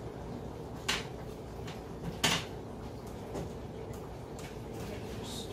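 A few sharp plastic clicks and knocks from tubing and compression-nut fittings being handled and fitted together, the loudest a little over two seconds in.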